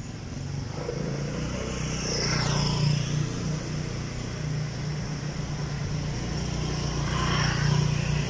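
Motor vehicle engine running steadily close by, getting louder about a second in and then holding at a constant pitch.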